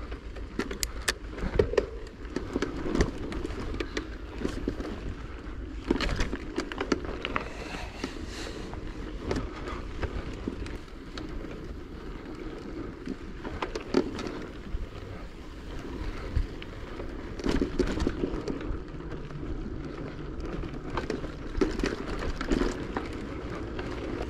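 Riding noise from a bicycle on a rough surface: a steady low rumble from the tyres with frequent clicks and rattles.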